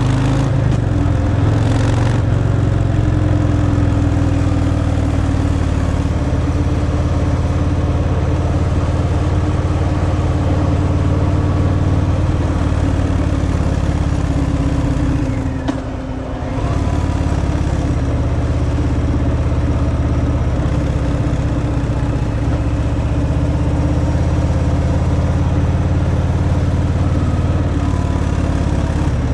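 Harley-Davidson Fat Boy V-twin running on its stock exhaust while riding at a steady pace, with a brief dip in the engine note a little past halfway before it pulls again.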